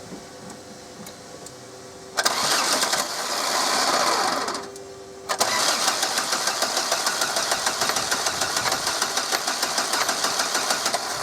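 Audi 1.9 TDI diesel engine being cranked on the starter to get it to fire after the fuel injection pump has been refitted. There is a short crank about two seconds in, then a longer one with a fast, even rhythm that starts suddenly about five seconds in.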